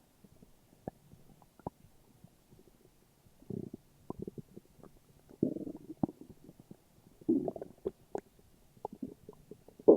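Human stomach growling and gurgling: scattered small pops and clicks, with short bubbling gurgles about three and a half, five and a half and seven seconds in.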